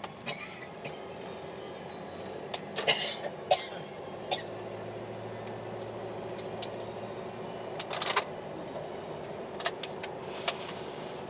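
A car engine running steadily, with several sharp knocks and a few short hissing bursts over it.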